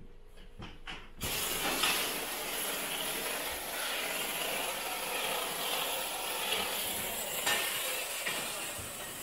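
Handheld steam cleaner gun jetting steam in a steady hiss onto a stone countertop, starting about a second in after a few light knocks.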